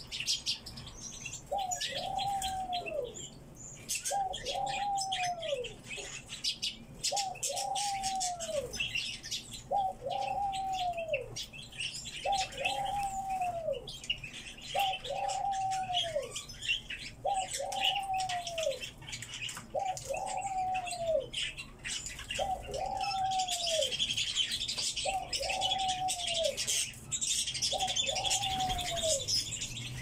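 Eurasian bullfinch piping its call: a short whistle that falls in pitch, repeated about every two and a half seconds. Under it, high twittering of other small birds and scattered light clicks, the twittering thicker in the last quarter.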